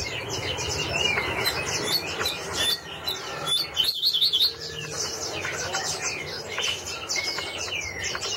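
Small yellow-green cage bird singing a long, rapid warbling song of high chirps and trills, with a quick run of notes about four seconds in.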